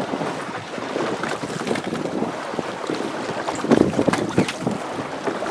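Wind buffeting the microphone over water lapping and slapping against a boat's hull, with a few louder slaps and splashes about four seconds in as a hooked fish is lifted out of the water.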